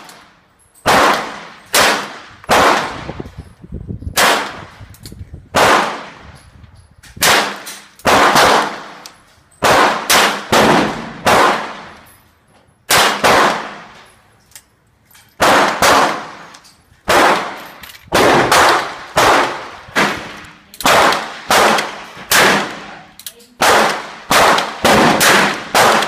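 Gunfire from handguns: about thirty sharp shots in irregular runs, sometimes several a second, each with a ringing echo tail under the covered firing line.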